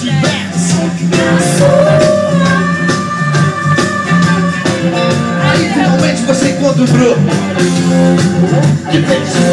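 Loud dance music with a singing voice, played from a DJ's decks over a club sound system.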